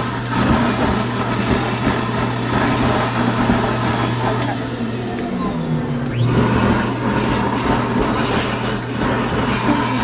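Plush-toy stuffing machine running, its blower motor giving a loud steady hum as fluff is blown into a stuffed animal. About five seconds in, a brief falling tone sounds and the hum dips, then picks back up.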